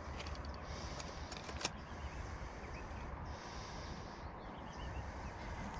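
Outdoor ambience: a steady low rumble, and a high hiss that swells and fades about every two seconds, with a few sharp clicks about a second and a half in.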